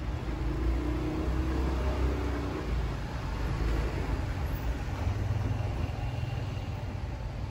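Cars and a motorbike driving across a railway level crossing, with engines running and a low rumble throughout.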